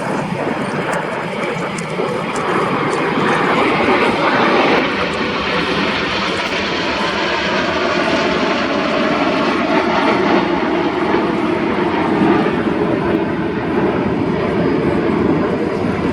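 Jet engines of a Boeing E-7A Wedgetail flying past in formation with the Red Arrows' Hawk jets: a loud, steady rushing sound that builds over the first few seconds and then deepens in pitch as the formation passes.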